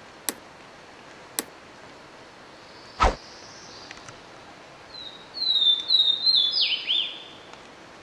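Swainson's warbler singing one song, starting about five seconds in: a few clear slurred notes, then a quicker phrase that drops lower in pitch. Before it come a few sharp clicks, the loudest about three seconds in.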